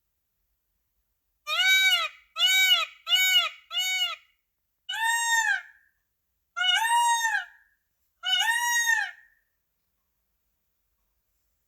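Indian peafowl (peacock) calling loudly: four short calls in quick succession, then three longer calls about a second and a half apart, each arching up and down in pitch.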